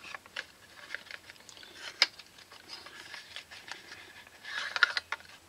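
Paperboard vacuum-tube carton being opened and the tube slid out by hand: soft rustling and scraping of the cardboard, with a sharp click about two seconds in and a louder flurry of rustling near the end.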